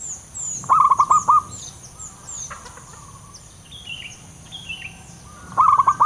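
Male zebra dove (perkutut) calling: two loud bursts of five or six quick staccato coos, about a second in and again near the end. Fainter high, falling chirps from other small birds sound in between.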